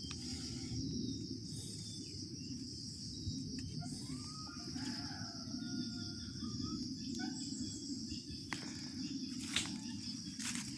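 Tropical forest ambience: a steady high drone of insects, over a low rustle of someone moving through leaf litter and undergrowth. A few brief bird chirps come about four to five seconds in, and a few sharp clicks near the end.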